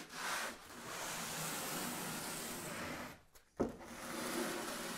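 Long wooden sanding block with 60-grit sandpaper rubbing along cork roadbed in long strokes, a steady scratchy rasp broken by brief pauses as the stroke turns. A single sharp knock about three and a half seconds in.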